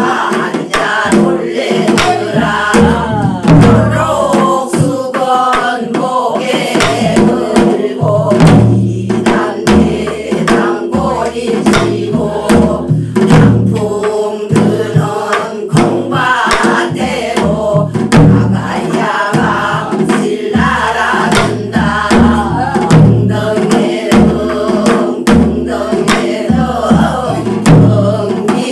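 A group of voices singing a Korean folk song to two Korean barrel drums (buk) beaten with sticks, the drum strokes sharp and repeated throughout.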